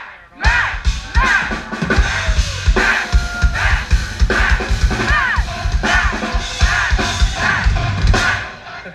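Live rock drum kit played fast and hard, with heavy bass drum and snare, starting about half a second in and stopping near the end, while a crowd chants a one-syllable name in rhythm over it.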